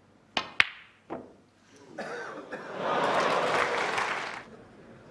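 Snooker balls struck on a match table: a sharp click of the cue on the cue ball, a louder click of ball on ball a moment later, and a softer knock about a second in. Then the audience applauds for about two and a half seconds.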